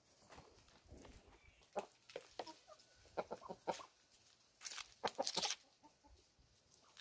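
Free-range chickens clucking in short, scattered calls, faint, with a busier cluster of calls past the middle.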